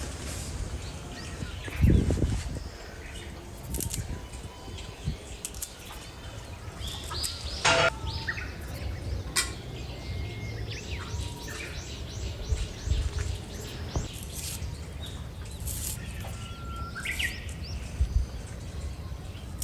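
Birds chirping and calling, with a few low thumps and sharp clicks; the loudest thump comes about two seconds in.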